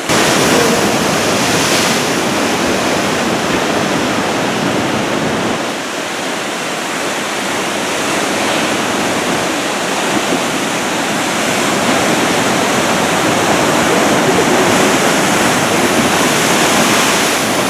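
Heavy surf from a typhoon swell breaking and washing ashore: a loud, steady rush of water noise.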